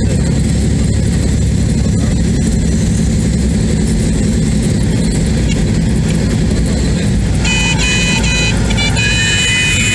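Cessna 172's engine and propeller heard from inside the cabin, running steadily on the landing approach. In the last two seconds or so, a high-pitched horn tone sounds on and off: the stall warning horn, as the plane flares for touchdown.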